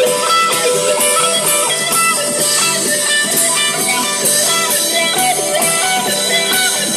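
Live rock band playing an instrumental passage, led by guitar with drums keeping the beat.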